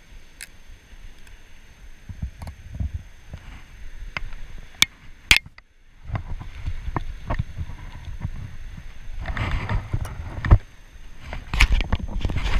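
Wind buffeting a body-worn camera's microphone in uneven gusts of low rumble, with sharp clicks and rustles from hands handling fishing gear close to the camera. The sound cuts out briefly about halfway through.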